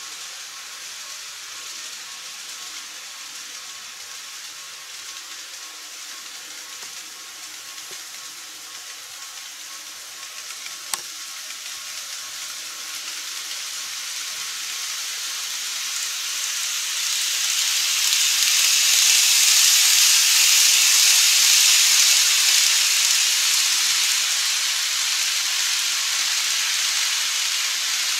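A KATO 103 series model train running on its track: a steady, high-pitched rolling hiss that swells as the train approaches, loudest a little past the middle, with a single sharp click just before the swell begins.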